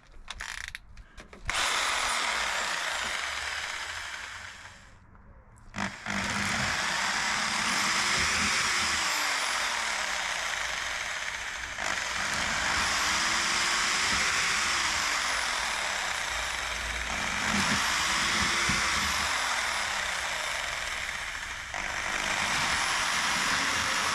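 Electric drill boring the main 6 mm holes through a motorhome garage door, running in long stretches with brief pauses between holes.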